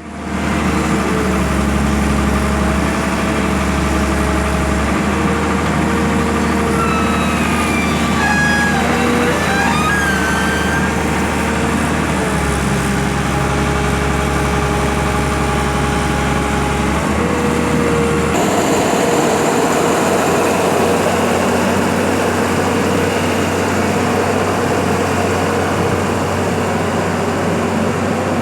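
Heavy vehicle engine running steadily, its hum jumping abruptly in pitch several times, with brief whining glides about seven to eleven seconds in. The sound changes sharply about eighteen seconds in.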